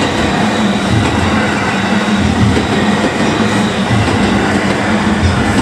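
Commuter train on the JR Hanwa Line passing close by, its wheels thudding over the rail joints in a steady running rumble.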